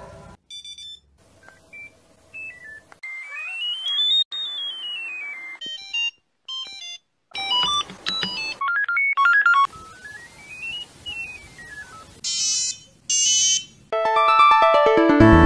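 Samsung mobile phone power-on and power-off tones played one after another. First come short electronic beep melodies from late-1990s and early-2000s Samsung handsets, including stepped runs of beeps that climb and then fall. About 14 seconds in, a louder, fuller polyphonic jingle with a deep bass begins.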